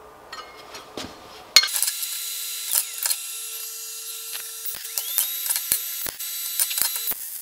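Sheet-steel pieces being handled and fitted together on a steel bench: a sharp metallic clack about a second and a half in, then a run of light irregular clicks and taps over a steady high hiss.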